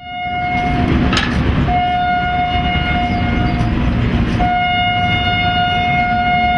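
Indian Railways locomotive horn sounding in three blasts of one steady note: a short one, one of about two seconds, and a third held on. The low rumble of the passenger train rolling by runs underneath.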